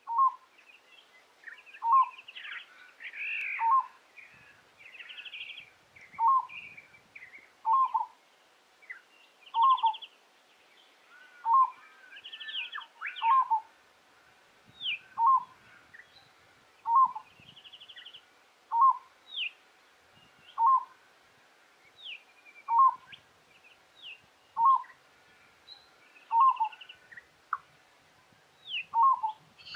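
Peaceful dove repeating its short call about every two seconds, around sixteen times. Fainter, higher chirps and whistles from other birds sound between the calls.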